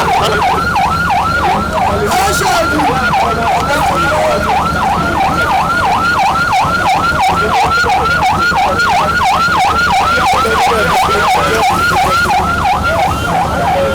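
Electronic siren in fast yelp mode, its pitch sweeping up and down about three times a second, over a low rumble.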